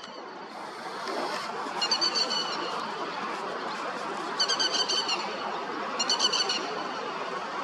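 Grey-headed lapwing calling: three bursts of rapid, repeated high, sharp notes, about two seconds apart, over a steady background hiss.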